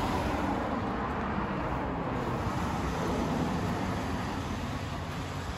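Steady vehicle and road noise: a continuous hiss with a low rumble, level throughout.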